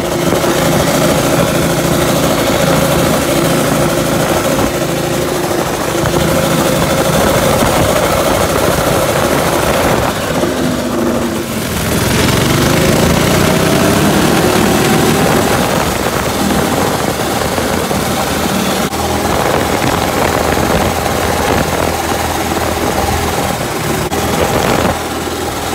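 Coleman CT200U-EX mini bike's 196cc single-cylinder engine, fitted with an FMF exhaust, running hard under riding load, with wind hiss over the microphone. About eleven seconds in the engine note dips, then rises steadily over several seconds as the bike accelerates and holds a higher pitch.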